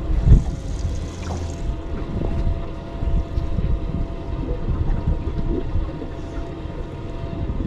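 Wind buffeting the microphone and water lapping against a small boat's hull, with one low thump near the start and a faint steady whine underneath.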